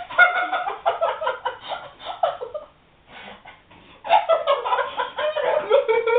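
Girls laughing in two high-pitched fits, the second starting about four seconds in after a brief lull.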